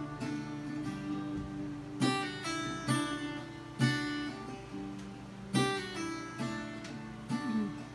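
Solo acoustic guitar: chords strummed every second or two and left to ring out between strokes, with a few sliding notes.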